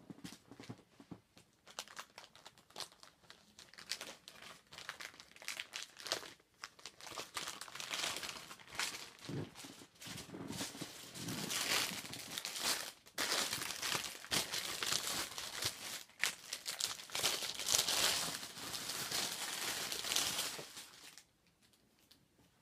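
Clear plastic packaging of human-hair bundles crinkling and rustling as it is handled and opened, an irregular crackle that grows louder about halfway through and stops shortly before the end.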